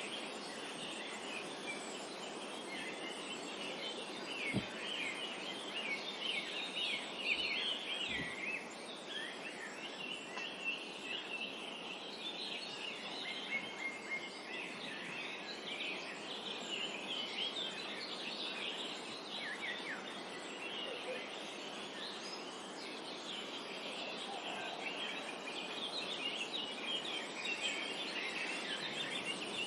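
A chorus of songbirds chirping and singing, with many short, overlapping high calls and trills, over a steady background hiss.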